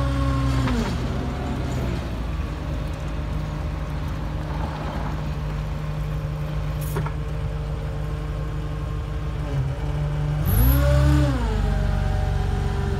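Engine of a 2005 Hyster 11,000 lb forklift running. It drops in pitch to a steady idle about a second in while the raised mast comes down. About ten seconds in it revs up briefly and settles back.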